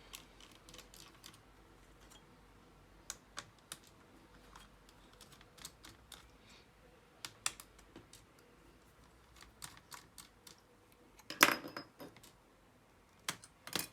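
Scattered small clicks and taps of laptop parts being handled during disassembly, with a louder, half-second burst of handling noise about eleven and a half seconds in.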